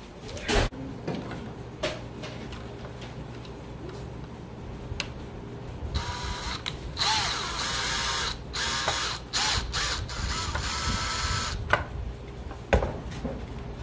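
Cordless drill driving a small screw into a plastic model airplane's fuselage, whirring in a series of short stop-start spurts over several seconds. A sharp knock comes just after the start and another near the end.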